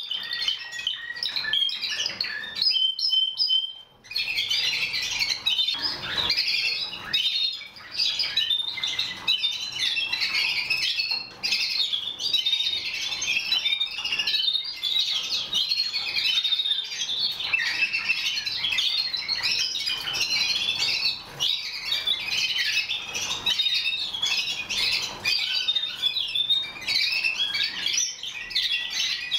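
A roomful of caged Timbrado Español song canaries singing together in a dense, overlapping chorus of trills and chirps. A lone trill comes first, then a brief pause about four seconds in, and the whole room sings without a break from then on.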